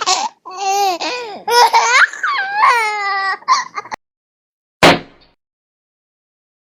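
A baby's high-pitched voice in a run of short cries that rise and fall in pitch, stopping about four seconds in. A single sharp knock comes about a second later.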